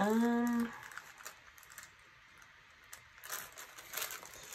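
A short, held vocal sound at the start, then sticker sheets in their translucent backing paper crinkling and rustling as they are handled, from about three seconds in.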